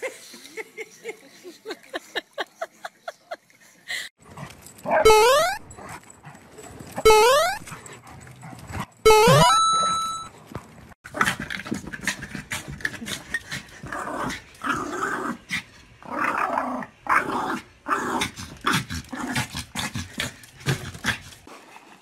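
Dogs growling and yelping, with three loud rising squeals about two seconds apart.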